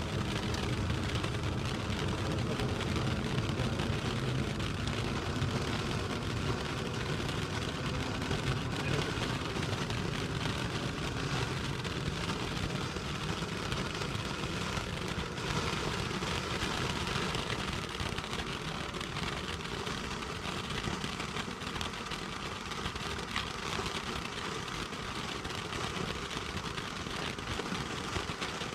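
Ground fireworks fountain burning steadily: a continuous hissing spray of sparks with a dense fine crackle, like rain on a surface.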